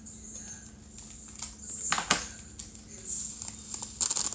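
A foil packet of diamond-painting rhinestones crinkling as it is snipped open with scissors and handled, with a few sharp clicks. Near the end, a quick rattle of tiny rhinestones tipped into a ceramic ramekin.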